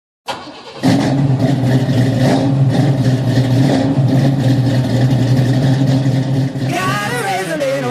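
An engine running at steady revs with a constant low hum, starting about a second in. Near the end a sliding, pitched sound comes in over it.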